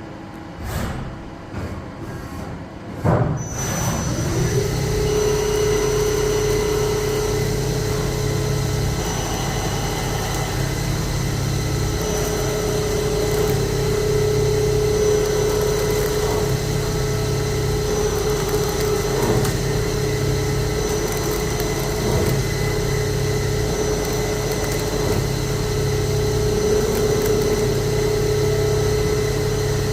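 CNC lathe spindle spinning up about three seconds in, with a rising whine, then running steadily with a constant whine and hum, as during a G71 profile-roughing turning cycle. A few light clicks come before it starts.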